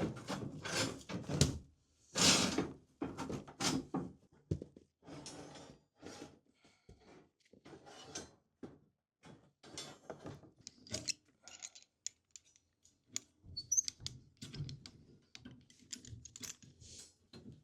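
Steel rebar being handled and set into a concrete slab form: irregular knocks, clinks and scrapes as bars strike each other and the form.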